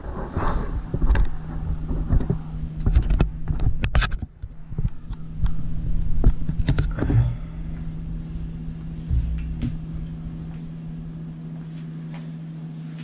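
Handling noise on a handheld GoPro's microphone as it is moved about and set down: rubbing and rumbling, with several sharp knocks and clicks. A steady low hum runs underneath and is all that remains in the last few seconds.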